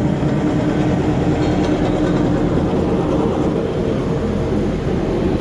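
Arnson 3,000 lb welding positioner running, its drive and gear train giving a steady mechanical hum with a few constant tones.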